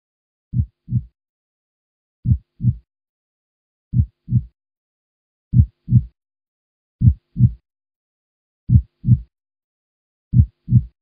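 Heartbeat sound effect: a slow, steady lub-dub, seven low double thumps about a second and a half apart.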